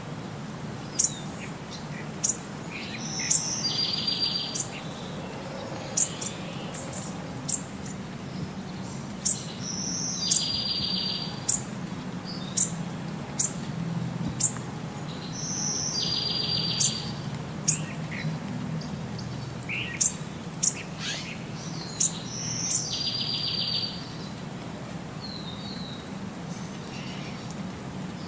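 Birdsong: sharp high chirps and a short buzzy trill, the same pattern repeating about every six and a half seconds, like a looped recording, over a steady low hum.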